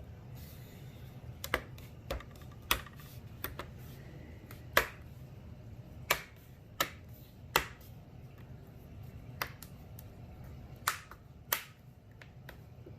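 Plastic trim bezel of a portable LCD monitor snapping into place clip by clip: about a dozen sharp clicks, spaced irregularly.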